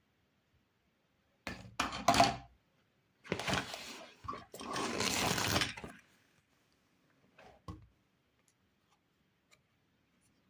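Toy kitchen play set pieces and their packaging being handled during unboxing: three noisy handling bursts, each about a second long, then a short faint one a couple of seconds later.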